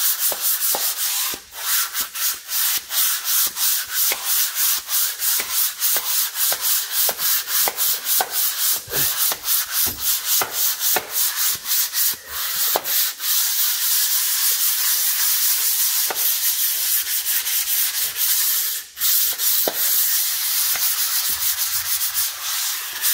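Hand sanding block with sandpaper rubbed in quick back-and-forth strokes over the dried first coat of decorative paint on a window reveal, knocking off the sand grains before the next coat. The strokes even out into steadier rubbing midway, with a brief pause near the end.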